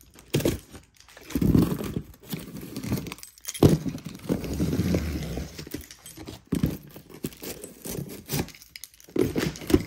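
Packing tape on a cardboard shipping case being slit with a small keychain box cutter: irregular scraping strokes of the blade through tape and cardboard, with the keys on the keyring jangling.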